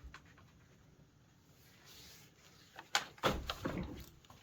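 Quiet handling, then about three seconds in a short burst of clicks and a sliding scrape as the nylon webbing of a string trimmer shoulder strap is pulled through its buckle to lengthen it.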